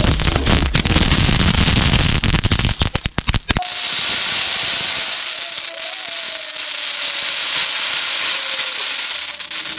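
Hundreds of pop-pop snap crackers (bang snaps) bursting on impact as they hit concrete, a dense rapid crackle of tiny snaps. About three and a half seconds in, the sound changes abruptly to a steady, hissing crackle.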